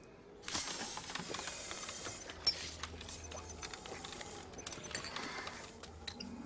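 Hissing and clicking of a protective suit's equipment pack, fitted with gauges and valves. The hiss comes in suddenly about half a second in, with scattered mechanical clicks and one sharp click about two and a half seconds in.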